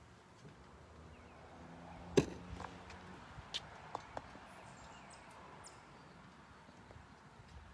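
Scattered clicks and knocks from saxophones and gear being handled while the players get ready, with one sharp knock about two seconds in. A few faint high chirps come near the middle.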